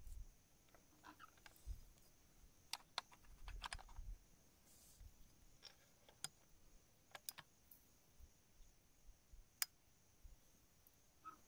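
Near silence broken by faint scattered clicks, light knocks and rustles from a rifle and gear being handled, with the sharpest click about ten seconds in. A faint steady high hiss lies underneath.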